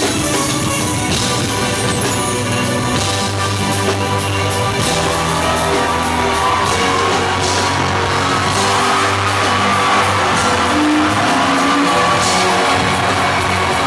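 Loud live hip-hop music played over a club PA: a steady beat with heavy bass notes and a sung vocal line over it, with some whoops and shouts from the audience.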